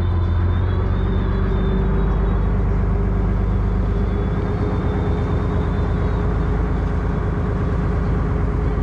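A fishing boat's engine running steadily under way, a constant low drone.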